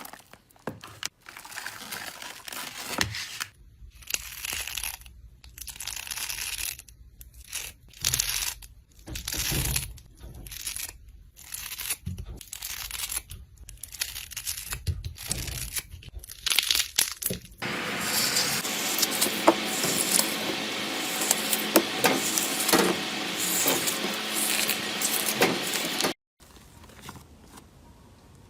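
Slime being worked by hand, squeezed and stretched. For the first two-thirds the sounds come in short bursts with gaps between them; then a denser, continuous stretch follows and cuts off abruptly near the end.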